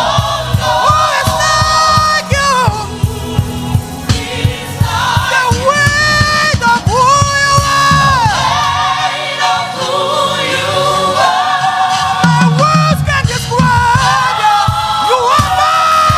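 Gospel choir singing with musical accompaniment: sustained, gliding sung notes with vibrato over a steady low beat.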